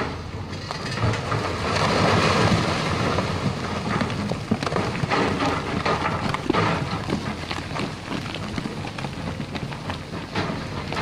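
Lonking hydraulic excavator's diesel engine running under load while its bucket scrapes at a rock face, with loose rock crunching and clattering down the slope. The loudest rush of rock comes about two seconds in, and sharp knocks of stone follow a few seconds later.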